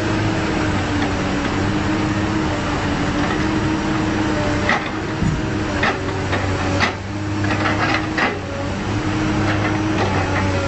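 A heavy diesel engine running steadily, with a cluster of sharp wooden knocks about halfway through as a hydraulic log grapple sets logs down on a truck's load of timber.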